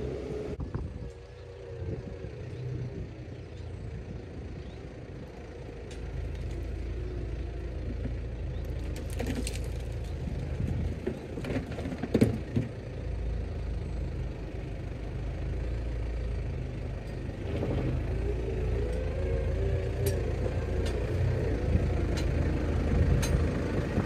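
Tractor diesel engine pulling a mounted plough through the soil, coming closer and growing steadily louder. A few sharp clicks and knocks stand out over the rumble, around ten to twelve seconds in and again near the end.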